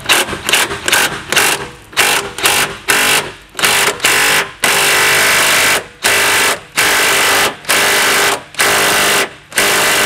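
Impact wrench hammering on a rusted 15 mm fuel-tank mounting bolt in repeated trigger bursts. There are quick short bursts for the first four seconds, then longer bursts of about a second each.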